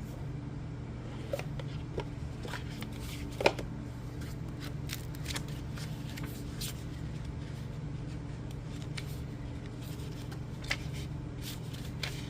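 Oracle cards being handled, with scattered light clicks and paper rustles as cards are slid and turned, the sharpest click about three and a half seconds in, over a steady low hum.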